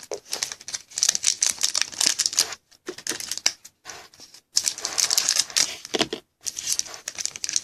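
Crinkling and rustling of plastic packaging and card sleeves as trading cards are handled, coming in quick crackly bursts with short pauses.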